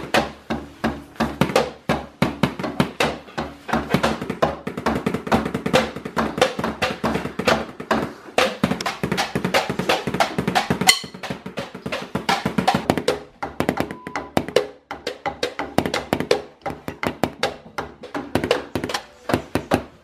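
PDP 502 double bass drum pedal played fast, its beaters striking an electronic kit's kick pad in rapid, even thuds several a second, with short breaks about two thirds of the way in. Music plays along.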